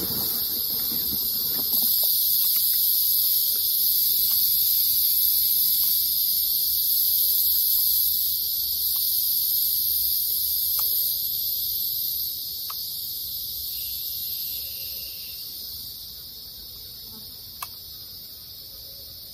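A steady, high-pitched chorus of forest insects that drops in level about two thirds of the way through, with a single faint click near the end.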